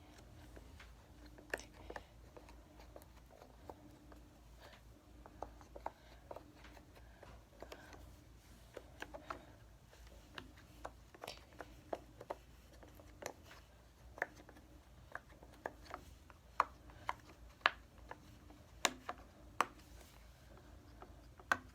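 Bubbles of a silicone rainbow pop-it fidget toy being pressed one after another: irregular soft pops, one or two a second, louder near the end.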